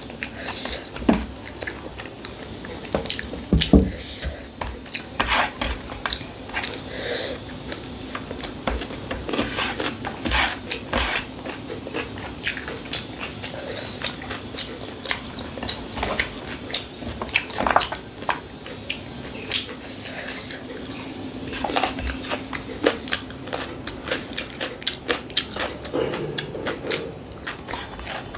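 A person eating: chewing and biting with many irregular short clicks and smacks.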